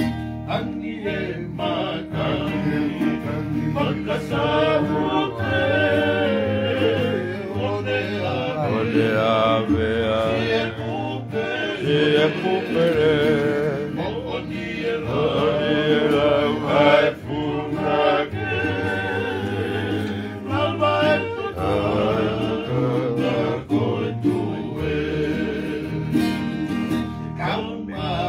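A group of men singing a Tongan song together, accompanied by strummed acoustic guitars.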